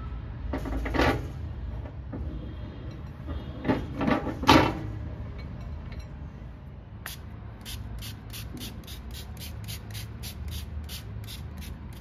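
Microwave turntable parts being set back into a stainless-steel oven: the roller ring and then the glass plate knock against the metal floor, the loudest about four seconds in. From about seven seconds a small fine-mist spray bottle is pumped over and over, about three sprays a second.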